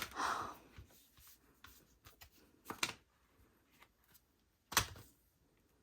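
Album packaging and photocards being handled: a few short paper and card rustles and taps, the loudest a little before the end.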